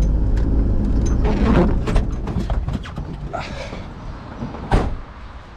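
Camper van's low engine and road rumble dying away as it pulls in and stops at the destination, with a few clicks and knocks, then a single loud thump near the end.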